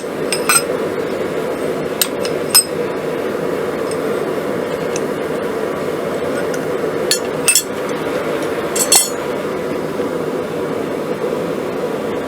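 A forge running steadily, with about five sharp metallic clinks and taps of tools on the hot square steel bar as it is twisted into a drive hook.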